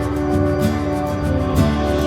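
Background music: a soft instrumental track with sustained notes changing every half second or so.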